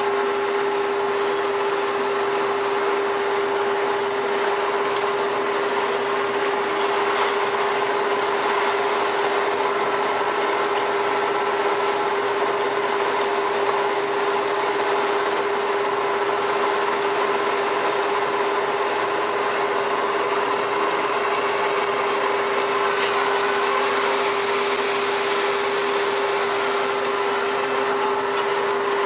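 Steady machinery drone from a fishing vessel, with a constant pitched hum that does not change. A few faint high ticks come in the first ten seconds, and a brief rush of hiss comes in about 23 seconds in.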